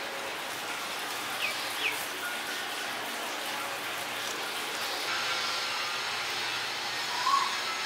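A steady hiss of background noise, with two short bird chirps about one and a half and two seconds in.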